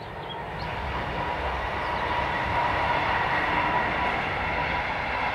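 Electric passenger train, a Siemens Vectron (BR 193) locomotive hauling double-deck coaches, running across a viaduct. Its rolling noise swells over the first two seconds and then holds steady, with a steady high whine on top.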